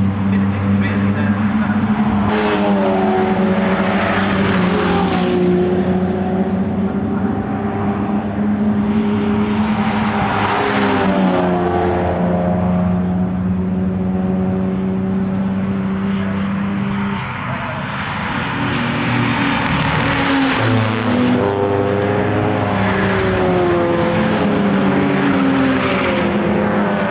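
Jaguar racing cars passing at speed one after another, their engines rising and then falling in pitch as each goes by, several passes in all with a short lull a little past the middle.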